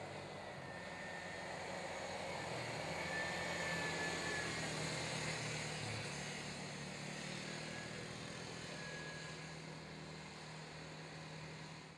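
Two small youth ATV (quad) engines racing at speed. The sound swells as they come nearer, is loudest about four seconds in, and then slowly fades.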